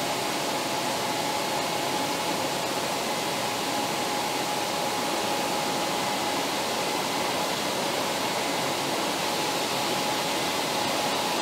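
Robotic paint booth: a steady hiss of spraying air and booth airflow as automated spray guns coat a truck cab, with a faint steady whine running under it.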